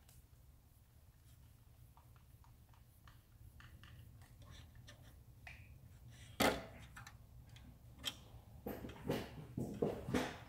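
Hands handling small hard objects: faint scattered clicks, then one sharp clack about six seconds in and a run of knocks and clatter near the end.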